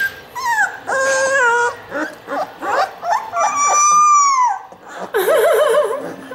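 Three-week-old puppy howling: a string of short rising and falling yelps, then a long high howl of about a second that drops in pitch as it ends, followed by a wavering, warbling howl.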